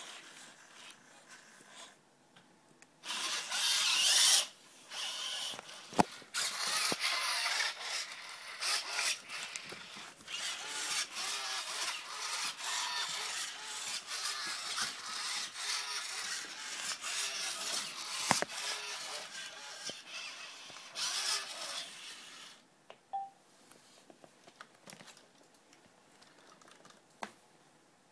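Genibo QD robot dog's leg servo motors whirring and gears clicking as it moves. It starts about three seconds in and stops a few seconds before the end.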